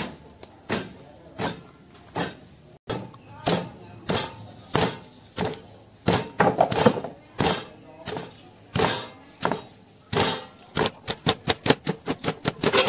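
Wooden pestle pounding sliced lemongrass into a paste in a stone mortar: regular strikes about every three-quarters of a second, turning into quicker strokes, about four a second, near the end.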